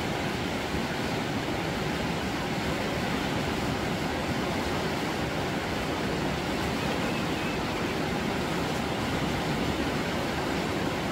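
River rapids rushing over boulders: a steady, even rush of water with no breaks.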